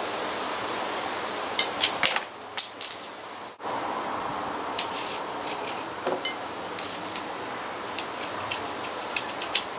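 Knife chopping apple on a wooden-style cutting board: irregular sharp taps in quick clusters over a steady background hiss.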